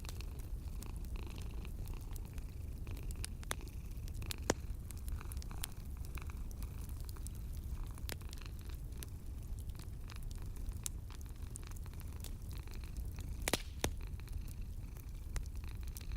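Cat purring as a steady low rumble, over a wood fire crackling with scattered small pops and a couple of sharper pops, one about four seconds in and a cluster near the end.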